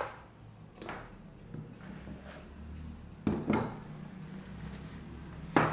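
Handling knocks and clatters as metal detector parts from the box are picked up and set down on a surface. The loudest is a double knock a little after halfway, with another sharp knock near the end.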